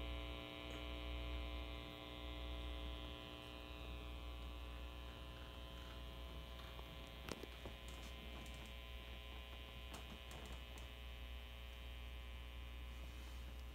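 Faint, steady mains hum and buzz from an idling electric-guitar rig, a tweed Fender amplifier with its effects pedals and loop station switched on, with a few faint clicks near the middle.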